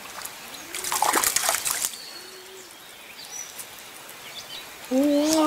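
A hooked bluegill thrashing and splashing at the water's surface for about a second, starting about a second in. Near the end a loud, steady, low-pitched tone with overtones starts, rising slightly at first.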